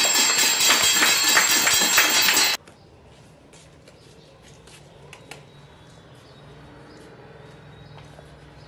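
Many children clapping while ringing small hand bells and striking metal plates, a loud dense clatter with metallic ringing that cuts off suddenly about two and a half seconds in. After that only faint background sound remains, with a few light knocks.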